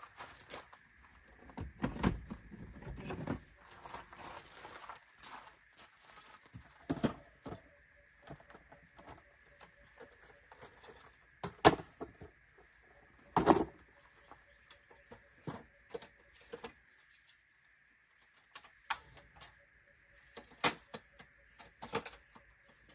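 Insects, crickets or cicadas, keeping up a steady high-pitched drone, with scattered sharp clicks and knocks over it every second or two.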